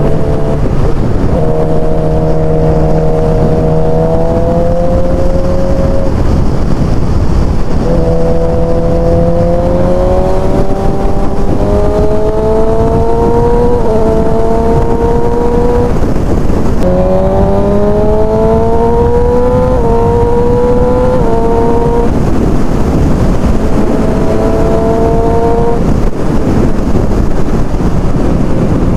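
2007 Suzuki GSX-R 600's inline-four engine breathing through an aftermarket exhaust, pulling hard in several rising sweeps, each cut short by a sudden drop in pitch as it shifts up a gear. Wind rushes over the helmet microphone throughout.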